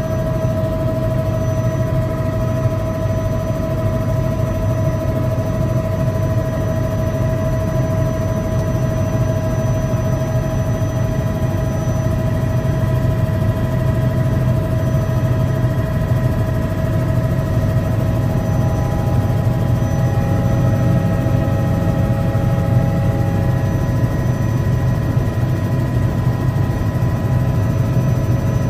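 Helicopter engine and rotor heard from inside the cabin in flight: a steady low drone with a constant high turbine whine over it, the whine shifting slightly in pitch about two-thirds of the way through.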